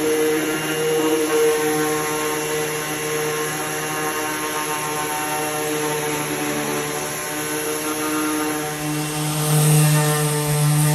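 Electric power tool motor running steadily with a hum and whine; it gets louder about nine seconds in.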